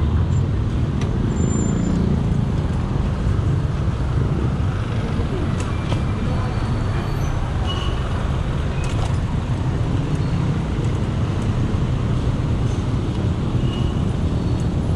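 Steady road traffic noise from a jam of cars and motorcycles, heard from a bicycle riding slowly past them, with a dense low rumble throughout.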